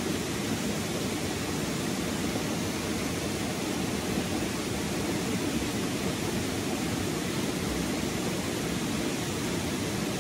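Steady rushing of a fast-flowing stream pouring into a pool, an even, unbroken water noise.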